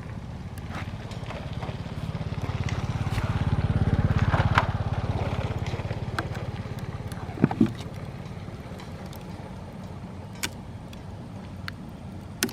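An engine running with a low, pulsing rumble that grows louder toward the middle and then fades, with a few sharp clicks or snaps later on.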